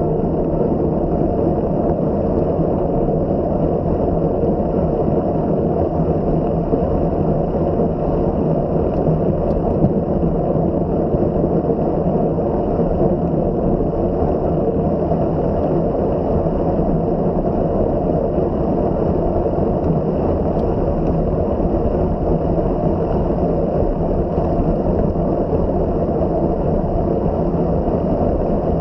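Steady rush of wind and rolling noise on the microphone of a camera riding along on a bicycle at race speed, a dense low noise without breaks.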